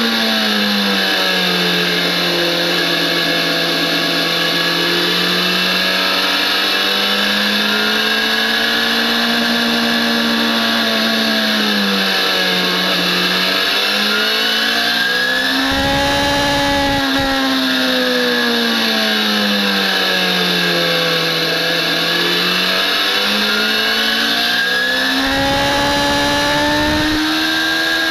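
Onboard sound of a BMW S1000RR's inline-four engine lapping a race track, its pitch climbing and falling every few seconds as the rider accelerates, shifts and brakes, over steady wind noise. Two short stretches of low rumble come partway through and near the end.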